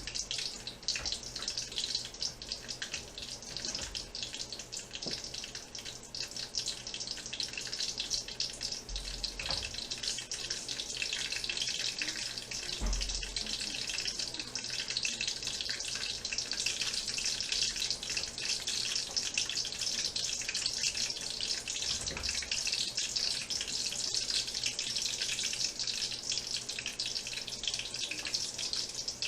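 Hot cooking oil sizzling and popping steadily in a pot, with pieces of ginger, pimento and scotch bonnet pepper frying in it as it heats up for frying. There are two low bumps partway through.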